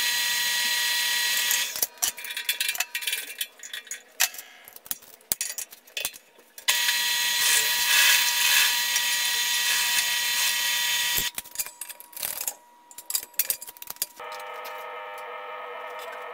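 Benchtop drill press running and cutting a hole through a small steel plate with a step drill bit, in two spells of a few seconds each, with clicks and clatter of handling between them. Near the end a different, quieter steady buzz begins.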